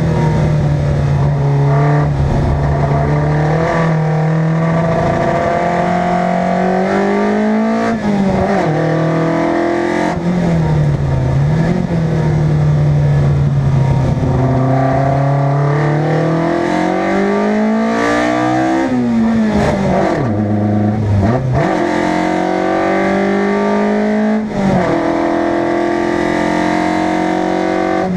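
Competition car's engine driven hard, its pitch climbing under acceleration and falling back at each lift or gear change, over and over. About twenty seconds in it revs high, then drops sharply to a low note before pulling up again.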